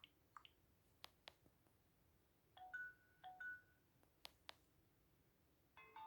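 Nokia C3 phone: faint sharp clicks of keys being pressed, scattered through, with two short electronic chirps at the start and two brief two-note tone blips a little after halfway, each cut off at once. A ringtone melody begins right at the end.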